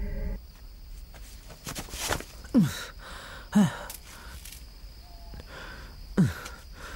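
A young man sighing three times, each sigh a short sound falling steeply in pitch, with a few faint rustles before the first.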